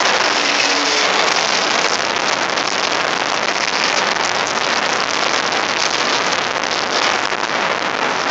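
Jet engine of a jet-powered Smart car running, a loud, steady rushing noise.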